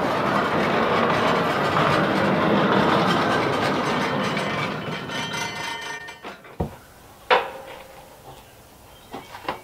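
Norwood LumberMate portable band sawmill running as its saw head travels along the track through a log; the noise dies away a little past halfway. Then a few sharp wooden knocks, the loudest about three-quarters of the way through, as the sawn lumber is handled.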